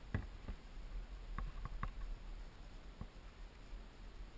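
Low wind rumble on a helmet camera, with a few small sharp clicks and knocks from handling a fallen dirt bike.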